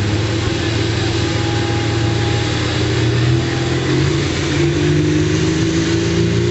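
Diesel pulling tractor's engine running at the starting line, hooked to the sled. The engine speed climbs gradually near the end as the pull gets under way.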